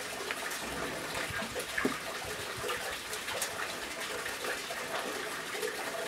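Steady running water, with a few light clicks over it.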